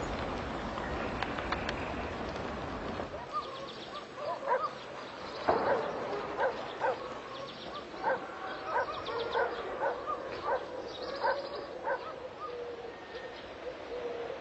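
Dogs barking repeatedly in short, irregular barks, after about three seconds of rushing noise.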